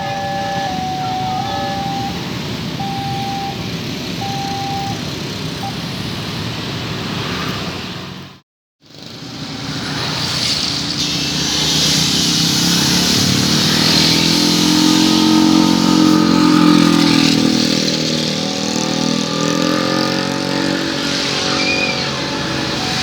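Electronic railway level-crossing alarm beeping in a repeating two-tone pattern over steady traffic noise; it stops a few seconds in. After an abrupt cut, a train passes with a diesel engine's drone that swells and fades over wheel noise, and the crossing alarm beeps again near the end.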